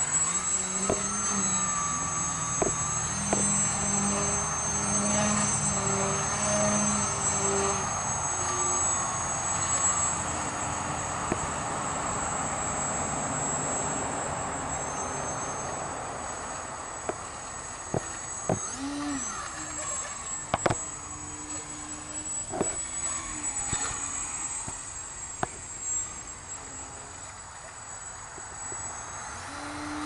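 Small foam RC delta-wing plane's electric motor and propeller whining and buzzing steadily in flight, the pitch shifting now and then with throttle. A few sharp clicks come in the second half.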